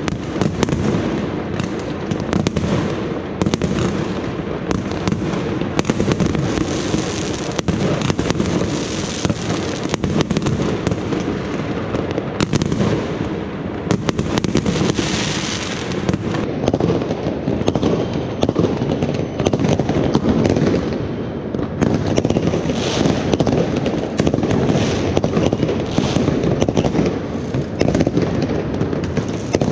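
Many fireworks going off at once in a continuous barrage: dense, overlapping bangs and crackles without a break.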